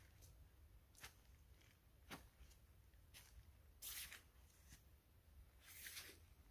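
Near silence, broken by a few faint, brief rustles or scuffs, about four in all.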